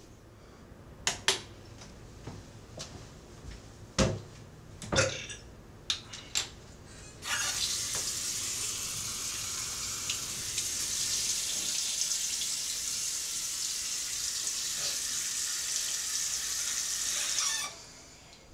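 A few sharp knocks and clunks, then a tap running steadily into a sink for about ten seconds, shut off suddenly near the end, as someone washes at it.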